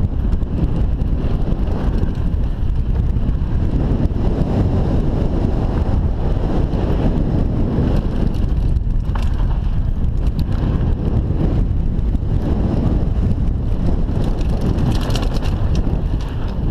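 Wind buffeting a helmet camera's microphone as a mountain bike descends dirt singletrack at speed, with the tyres rumbling over the dirt. A few sharp rattles from the bike come through about nine, ten and fifteen seconds in.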